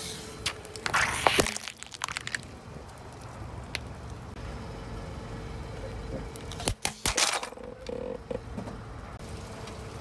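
Car tyre rolling over and crushing a plastic toy bubble wand, with a cluster of sharp cracks and snaps about a second in. A few seconds later it crushes a plastic tub of sidewalk chalk, giving a second burst of cracking. A low car rumble runs underneath.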